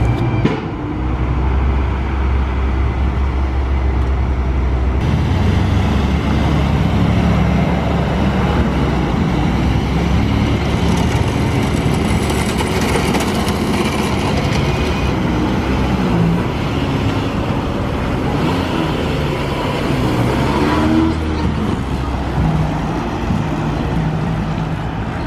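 Lowered Honda Civic hatchback, its K-Tuned aftermarket muffler just swapped out so it will pass California's exhaust rules, idling steadily for about five seconds, then running through changing revs as it pulls out of the shop and drives off.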